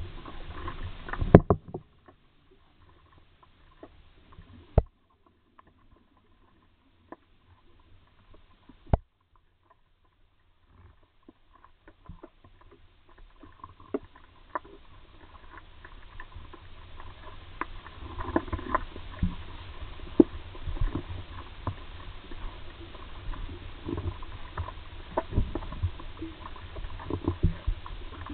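Muffled sound of water moving around a camera held just below the surface. A few sharp clicks and knocks come in the first several seconds. From about twelve seconds in, a low rumble of sloshing water builds, scattered with crackles and thumps.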